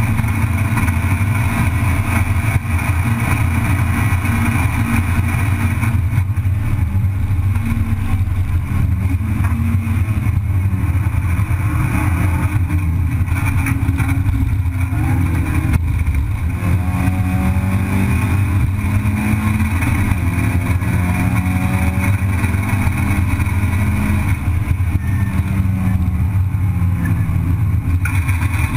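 Race car engine heard from inside the cabin, running hard at racing speed, its pitch rising and falling as the car accelerates and backs off through the corners, with road and wind noise underneath.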